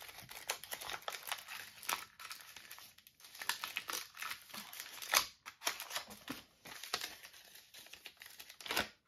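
A small wrapped gift being unwrapped by hand: the wrapping crinkles and tears in irregular bursts, loudest about five seconds in and again near the end.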